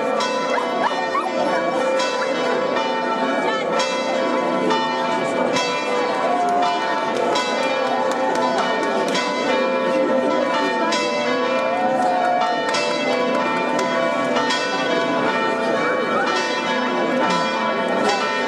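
Church bells pealing steadily, struck about once a second, over the chatter of a crowd.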